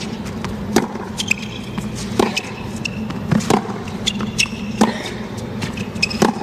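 Tennis racquets striking the ball back and forth in a baseline rally on a hard court, a sharp hit about every second and a half.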